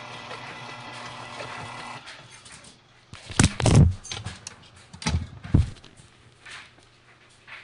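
Breville stand mixer's motor running steadily with the flat beater turning in the steel bowl, then switched off about two seconds in. Several loud knocks and thumps follow, from the phone and the mixer being handled.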